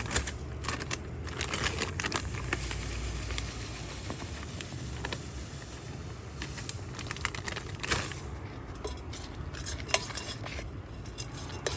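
Potting mix of soil, orchid bark and sand being poured and stirred together in a container: a steady gritty rustling and scraping with small clicks, and one louder scrape about eight seconds in.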